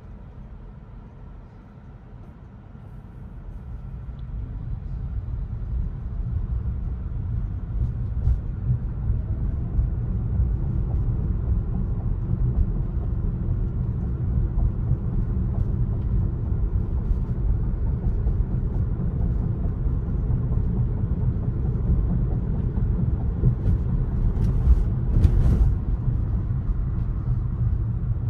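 Road and tyre noise of a Tesla Model Y driving, a low rumble that grows louder over the first several seconds and then holds steady. A few short clicks come near the end.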